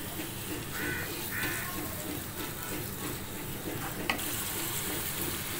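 Chopped onions sizzling steadily in hot oil in a nonstick frying pan, stirred with a wooden spatula, with one sharp knock about four seconds in.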